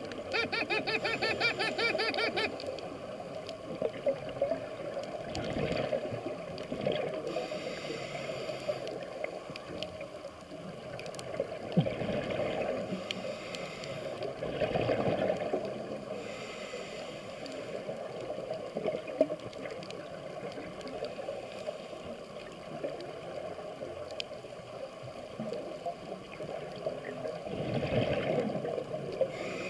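Scuba diver breathing through a regulator underwater: slow breath cycles, with hissing inhales and exhaled bubbles rising.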